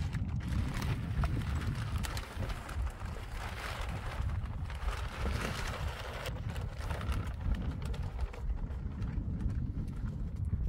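Large plastic sheet rustling and crinkling as it is pulled off a woodpile and carried, over a steady low rumble of wind buffeting the microphone.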